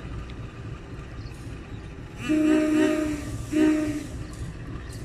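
Diesel locomotive horn sounding two blasts, the first about a second long and the second shorter, with a slightly hoarse, wavering tone.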